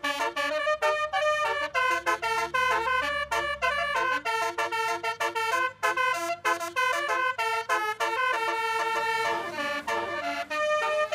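Basuri telolet horn playing a quick melody of short, stepped notes. A low steady hum runs underneath for the first four seconds.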